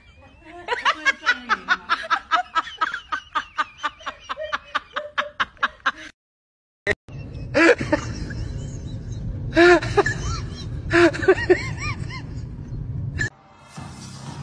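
A person laughing hard in a fast, even run of 'ha-ha' bursts, about five a second for some five seconds. After a brief silence, a steady rushing noise follows, broken by a few loud bursts of laughter.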